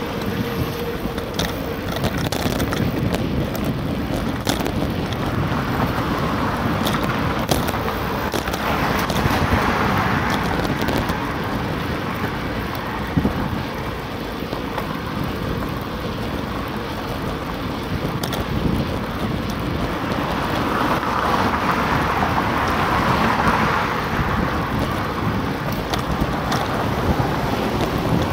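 Wind rumbling on the microphone of a camera riding a bicycle, over street traffic noise that swells twice as vehicles pass, with occasional small clicks and knocks.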